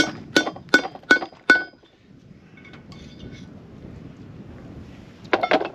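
A hammer is driving a punch against a caravan wheel hub's bearing outer race (cup) to tap it out of the hub. It gives five ringing metallic strikes in quick succession, about two and a half a second, then a pause, then a quick cluster of about three more strikes near the end.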